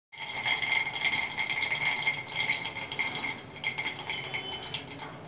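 Mustard seeds popping in hot oil inside a covered stainless-steel kadhai, pinging against the steel lid as a rapid crackle. The popping is dense at first and thins out after about three and a half seconds, the sign that the seeds have finished spluttering and the tempering is ready for the next spices.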